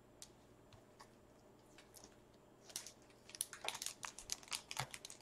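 Foil wrapper of a Panini NBA Hoops trading-card pack crinkling in gloved hands as it is handled for opening: a run of quick crackles that starts a little over halfway through.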